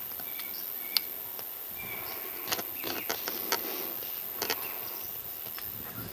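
Outdoor ambience with a steady high insect hiss, a few short high chirps in the first two seconds, and scattered sharp clicks in the middle.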